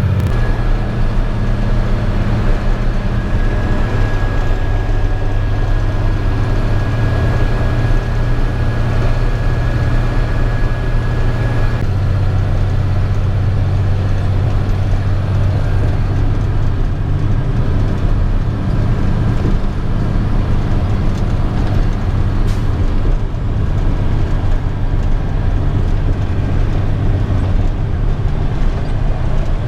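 Truck driving on the road: a steady engine hum with road noise, the engine note shifting about twelve seconds in.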